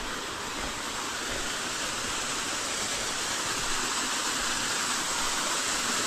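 Waterfall: the steady rush of falling water, growing gradually louder.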